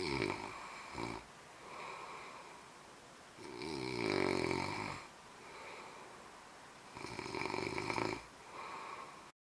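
A man snoring in his sleep while wearing a nasal anti-snoring insert: three loud snores about three and a half seconds apart, with quieter breaths between them. The snoring goes on despite the device, which the uploader judges ineffective. The sound cuts off abruptly at the very end.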